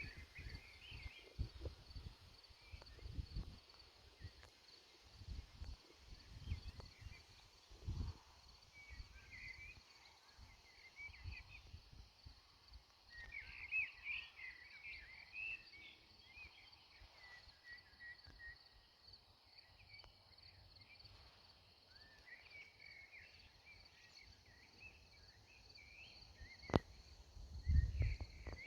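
Outdoor ambience: birds chirping in short bursts over a steady high-pitched hum. Low wind rumbles on the microphone come and go, and there is one sharp click near the end.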